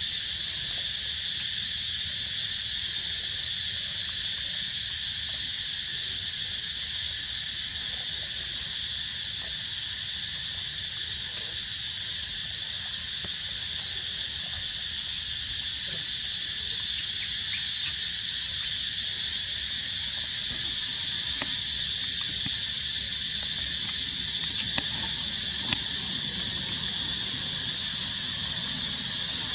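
Steady, high-pitched chorus of insects that holds without a break, with a few faint clicks scattered here and there.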